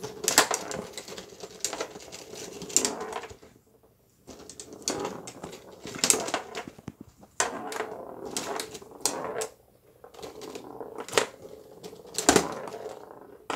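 Tabletop foosball game in play: irregular sharp clacks of the ball being struck by the plastic player figures and knocking against the table, with a clattering rattle between the hits.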